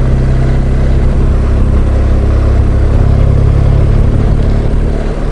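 Water-cooled flat-twin engine of a 2018 BMW R1200GS Adventure motorcycle running steadily at road speed while being ridden.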